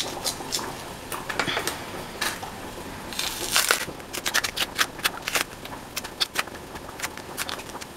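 Green plantain being peeled: a kitchen knife scraping and cutting through the stiff skin, then the peel being pried and torn away by hand. It comes as a run of small clicks and crackles, with a longer scraping rasp a little past three seconds in.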